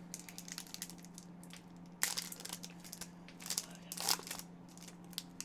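Foil trading-card pack wrapper crinkling and rustling as it is handled and opened, in scattered short crackles, over a steady low hum.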